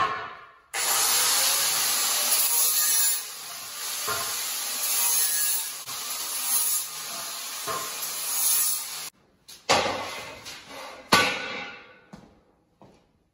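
Angle grinder working on square steel tubing, a high whine over a harsh grinding noise whose loudness rises and falls as the wheel bears on the metal. It stops suddenly about nine seconds in, followed by a few clanks of steel tubing being handled.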